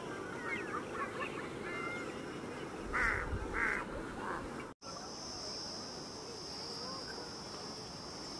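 Outdoor birdsong with many short chirps, and two loud calls about three seconds in. After a sudden break about halfway through, a steady high insect drone takes over.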